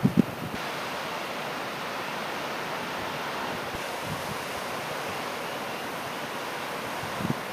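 Steady rain falling during a thunderstorm, an even hiss, with a brief low thump just after the start.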